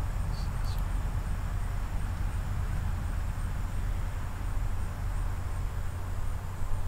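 Steady low hum with a background hiss, with two faint short ticks about half a second in.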